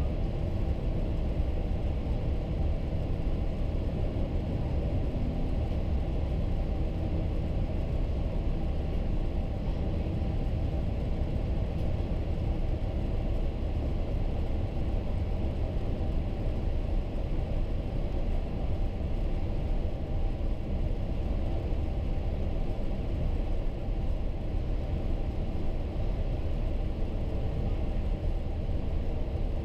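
Cabin noise of a Boeing 787-8 Dreamliner in flight on approach, heard from a window seat beside the wing: a steady low rumble of airflow and its GEnx engines that stays level throughout.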